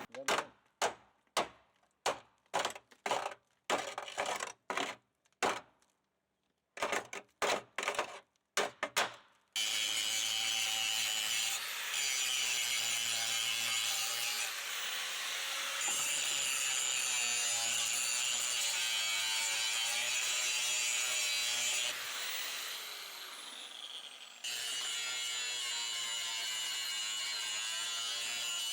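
A run of about seventeen sharp hammer blows on steel, roughly two a second. Then a power grinder runs on the truck frame steel with a steady high whine, dipping briefly twice. It winds down a little after twenty seconds and starts up again a couple of seconds later.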